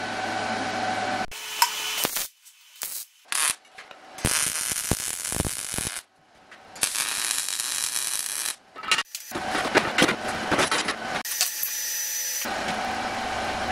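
Short, cut-together bursts of MIG welding: an even, hissy arc crackle lasting a second or two at a time, stopping abruptly between bursts, with a few metal clicks and knocks near the start.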